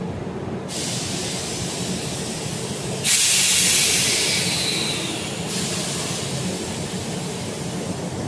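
Mexico City Metro train standing at the platform with a steady low hum, while compressed air vents from its pneumatic system: a hiss starts about a second in, then jumps to a loud hiss for about two and a half seconds before dropping back.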